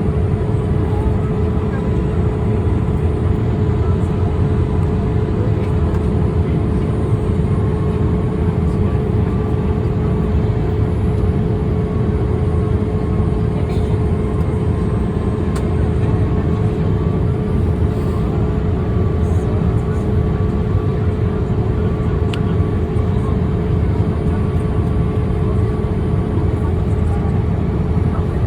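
Steady cabin noise of a Boeing 787 Dreamliner in flight: an even rumble of engines and airflow with a constant droning hum.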